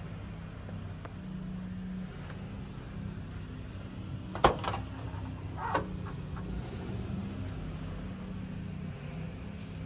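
Mack RD688S dump truck's diesel engine idling steadily. About halfway through there is a sharp metallic clack, then a smaller one about a second later, as the cab door is unlatched and swung open.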